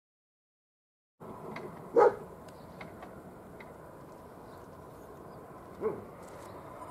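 A dog barks twice over quiet outdoor background: a loud short bark about two seconds in and a fainter one near the end. The first second or so is silent.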